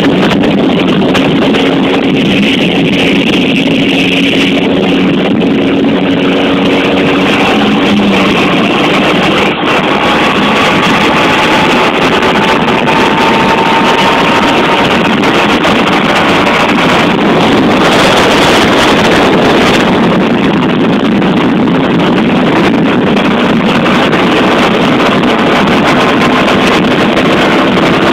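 Hyosung GT250R's 250 cc V-twin engine running under way, its pitch rising and falling with the throttle, with wind buffeting the microphone.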